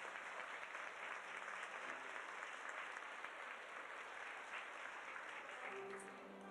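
Audience applause, a dense patter of many hands clapping, thinning out near the end as a steady musical note begins.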